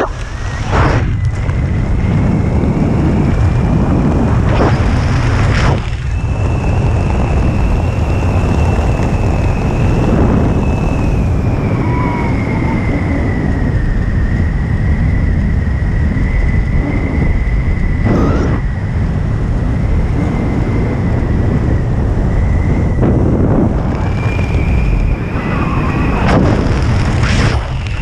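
Wind buffeting the microphone of a camera worn by a skydiver flying under an open parachute canopy: a loud, steady low rumble with a thin whistle that wavers slightly in pitch, and a few short louder rushes.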